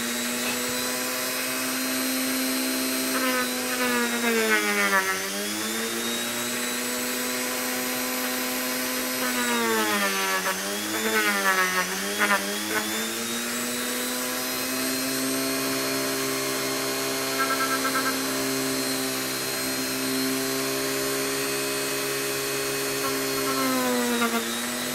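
Dremel rotary tool spinning a sanding drum against EVA foam, a steady high motor whine whose pitch sags and recovers several times as the drum is pressed into the foam, about 4 s in, around 10 to 13 s, and near the end.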